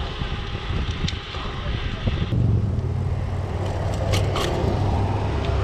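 Mountain bike tyres rolling over gravel, with wind on the microphone. About two seconds in, the hiss drops away and a deep, steady rumble takes over, with a couple of sharp clicks near the end.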